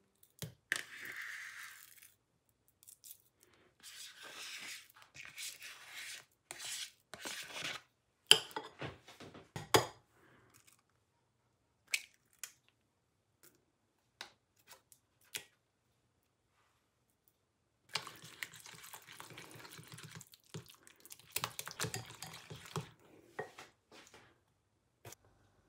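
Close kitchen handling sounds at an enamel bowl: a spoon scraping soft cream cheese out of its pack, a few sharp taps and an egg being broken open, then a whisk stirring the mixture in the bowl near the end.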